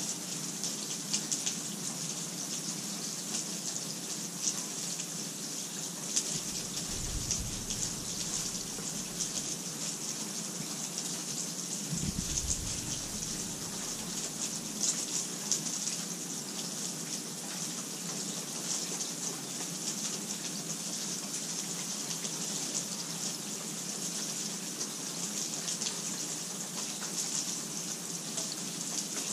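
Steady rainfall, a constant hiss with fine crackle of individual drops. A faint low rumble comes in twice, around a quarter and again around halfway through.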